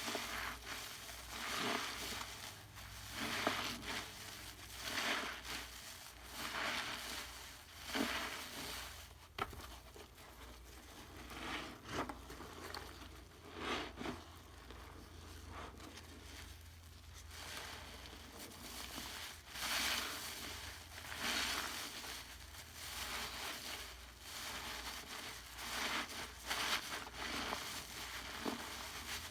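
Crackling, crunching sounds that swell and fade about every one to two seconds, as of something being squeezed or crushed over and over.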